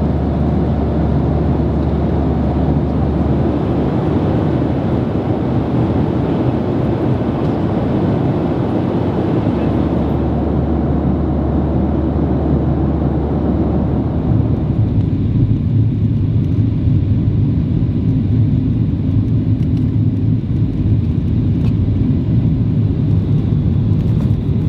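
Steady cabin noise of a Boeing 737-800 in flight, jet engines and rushing airflow as heard from a passenger seat. About halfway through it changes to a deeper rumble with less hiss.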